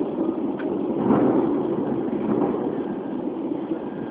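Thunder rolling on after a close strike: a deep, steady rumble that slowly fades.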